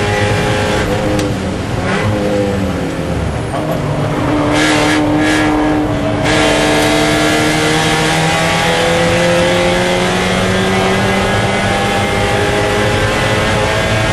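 Spec Miata race car's four-cylinder engine heard from inside the cockpit, under racing load. The engine note drops and wavers in the first few seconds as the driver comes off the throttle, then climbs slowly and steadily through a long full-throttle pull in one gear.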